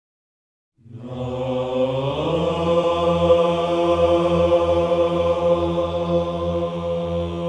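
Orthodox Byzantine-style chant starting about a second in: voices hold long notes over a low steady drone, the melody rising slightly at about two seconds and then holding.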